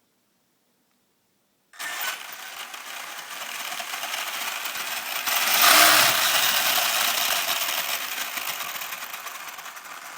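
HPI Savage Flux HP electric RC truck's brushless motor and drivetrain running under throttle with a harsh grinding whir. It cuts in suddenly about two seconds in, is loudest around the middle and eases off near the end. The grinding is a drivetrain fault whose cause the owner does not know.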